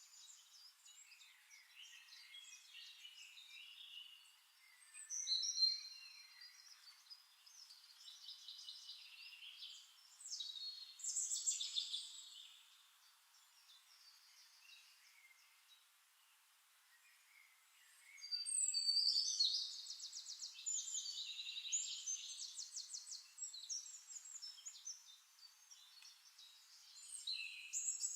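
Several songbirds chirping and trilling, with the loudest bursts of song about five, eleven and nineteen seconds in. The sound is thin and high, with nothing low underneath.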